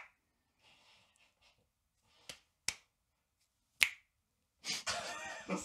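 A few finger snaps, single and sparse, followed by a short burst of noisier sound near the end.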